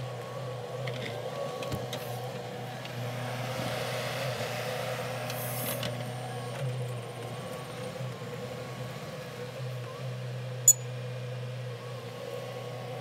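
Mini excavator's diesel engine running steadily while it digs, with a sharp click about two-thirds of the way in.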